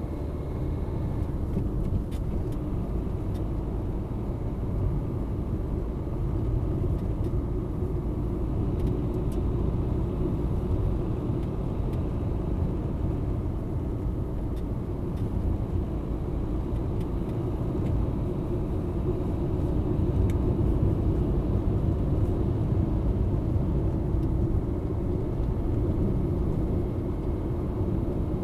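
Car driving along a narrow asphalt road at about 55 to 65 km/h, heard from inside the cabin: a steady low rumble of tyres and engine, with a few faint ticks.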